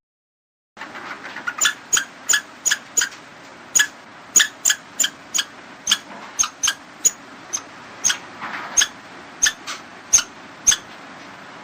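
Squirrel calling with a long run of short, sharp chirps, roughly three a second, beginning about a second in over a faint hiss.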